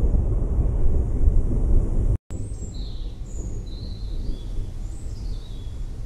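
Low rolling rumble of thunder that cuts off abruptly with a brief dropout about two seconds in. A quieter low storm rumble follows, and a bird calls over it in several short, high chirps that fall in pitch.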